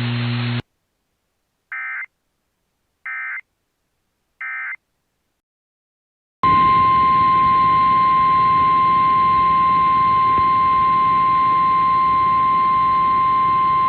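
Three short bursts of EAS/SAME digital data, the end-of-message code, about a second and a half apart. A couple of seconds later the steady 1050 Hz NOAA Weather Radio warning alarm tone begins over radio static and holds.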